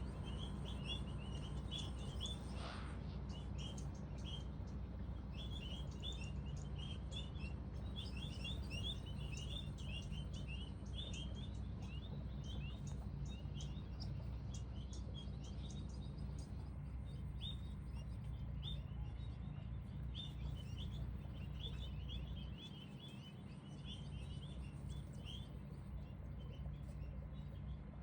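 Many small birds chirping in a dense, continuous chatter of short high chirps, over a low steady rumble.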